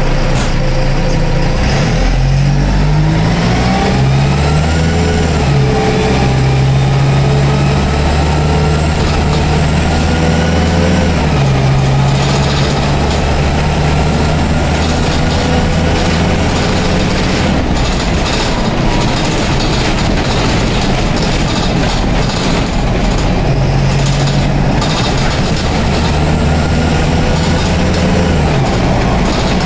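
Dennis Dart bus's Cummins diesel engine and Allison automatic gearbox heard from inside the saloon, pulling hard. The engine note and a gearbox whine rise together and fall back at each upshift, twice in the first ten seconds or so. The bus then runs steadily before pulling up through a gear again near the end.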